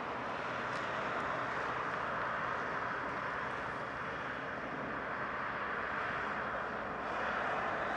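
Airbus A300-600ST Beluga's twin General Electric CF6-80C2 turbofans running at taxi power as the aircraft lines up on the runway: a steady jet whine and hiss, swelling slightly near the end.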